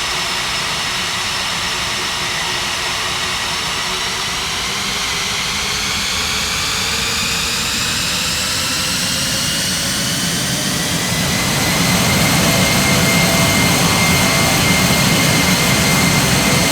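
Boeing 767-300's twin turbofan engines spooling up for the takeoff roll: several whining tones rise steadily in pitch, then hold steady at takeoff power as the sound grows louder about twelve seconds in.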